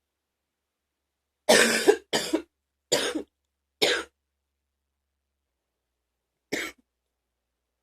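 A woman coughing: four coughs in quick succession starting about a second and a half in, the first the longest and loudest, then a single short cough near the end.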